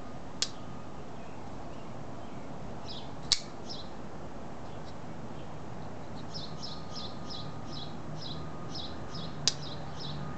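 Three sharp clicks from a flipper folding knife with titanium liners as its blade snaps into position, the middle one loudest. A small bird chirps in short runs, quickening near the end.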